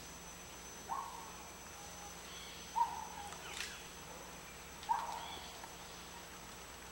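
A bird calling in the forest: three short, slightly falling notes about two seconds apart, over a steady high-pitched background hum. A single sharp click comes a little past halfway.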